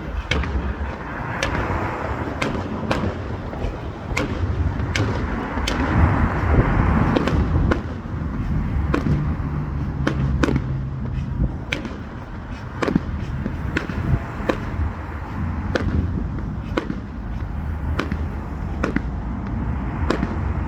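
Fireworks going off: a string of sharp bangs at irregular intervals, several a second at times, over a continuous low rumble of distant explosions.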